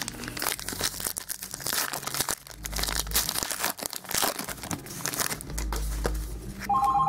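Foil wrapper of a pack of trading cards being torn open and crinkled, in irregular crackling rustles. Near the end a phone starts ringing with a steady two-tone ring.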